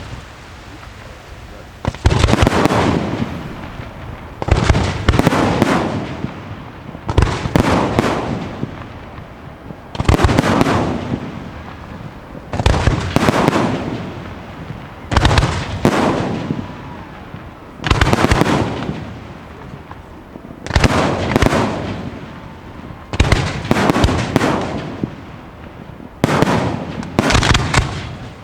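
Aerial firework shells from a Pirotecnica Pellicani display bursting in a steady sequence, about eleven bangs roughly two and a half seconds apart, some in quick pairs. Each is a sharp bang with a tail that fades over about a second.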